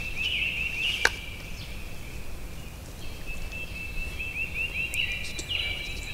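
Bird calls in the woods: quick runs of short, high-pitched notes, one near the start and a longer stretch from about three seconds in, with a sharp click about a second in.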